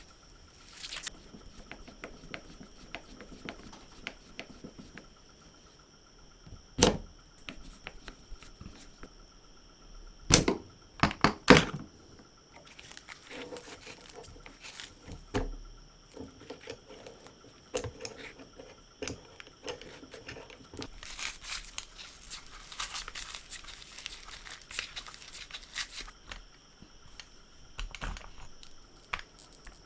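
Hands-on workshop handling noise: scattered sharp knocks and clicks, loudest about a third of the way in, with stretches of rustling and scraping.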